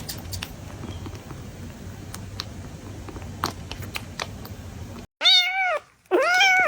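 Kitten meowing twice: two loud, drawn-out meows, each rising and then falling in pitch. Before them come several seconds of light scattered clicks over a hiss, which cut off suddenly just before the first meow.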